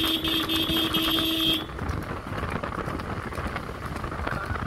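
A vehicle horn sounds steadily and cuts off suddenly about one and a half seconds in. After that comes a steady rushing noise from the moving vehicle and road.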